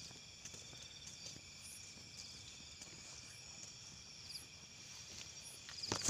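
Night chorus of crickets and other insects: several steady high trills, with a short, higher chirp repeating about once a second.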